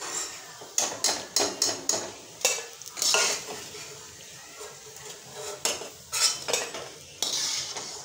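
Perforated steel skimmer scraping and clinking against an iron kadhai as fried pakoras are lifted out of hot oil, with the oil sizzling. The clatter comes in two bursts, in the first few seconds and again near the end.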